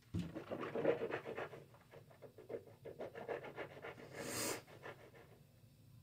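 A man panting heavily through his mouth in pain from an extremely hot chili chip, with a sharp hissing blow through pursed lips about four seconds in.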